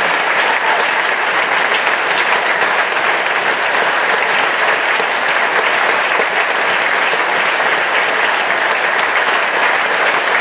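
Audience applauding steadily: dense clapping from many hands, unbroken throughout.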